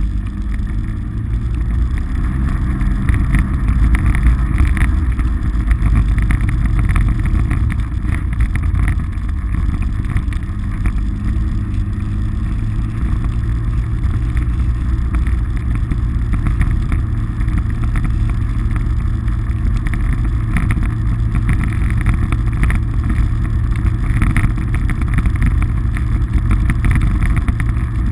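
Polaris RZR side-by-side's engine running steadily under way, a continuous low rumble with little change in speed.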